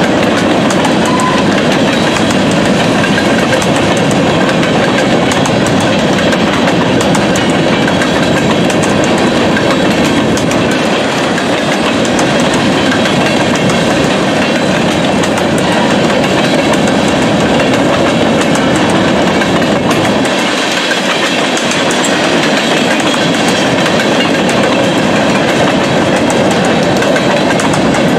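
Freight train of covered hopper cars rolling steadily past, steel wheels rumbling on the rails and clicking over rail joints.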